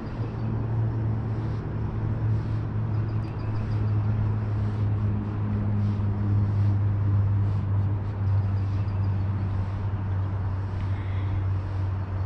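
Steady low drone of distant road traffic.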